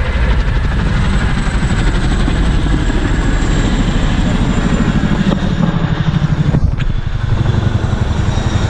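Low-flying helicopters passing overhead, at least one of them tandem-rotor: a steady, rapid low rotor chop.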